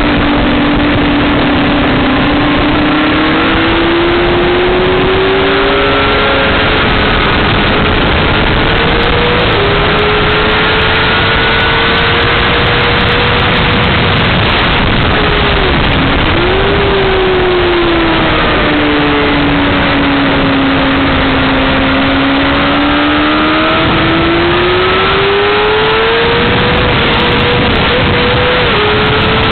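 Honda CBR600RR inline-four sport bike engine pulling hard at track speed, its pitch climbing steadily and dropping sharply at gear changes and braking, under heavy wind rush on the microphone.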